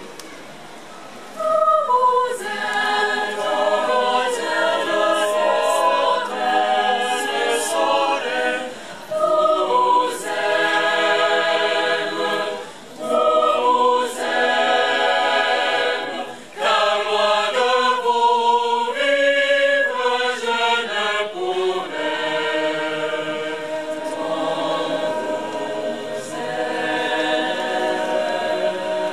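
Mixed youth choir singing a cappella in several parts, in sustained phrases with short breaks between them. A quiet held note opens, and the full choir comes in about a second and a half in.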